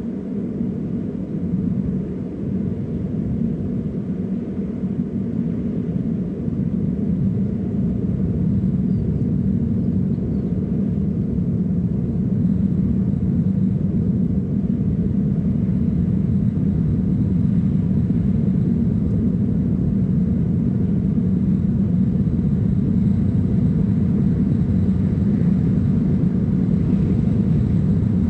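A steady low rumble that slowly grows louder over the first ten seconds or so, then holds.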